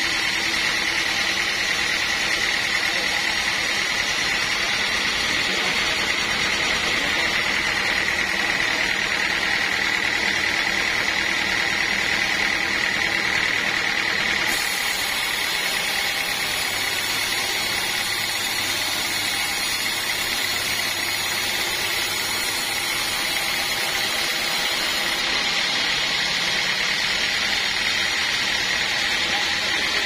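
Band sawmill blade cutting lengthwise through a teak beam: a steady high whine over a constant hiss, its tone shifting slightly about halfway through.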